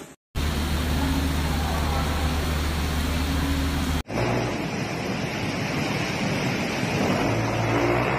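Car engines running under a steady hiss of heavy rain and water. The sound cuts sharply to a different recording about four seconds in.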